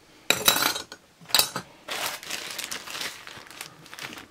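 Small metal sewing machine parts clinking and rattling against a steel drawer, loudest in the first second, then a plastic bag crinkling as it is handled.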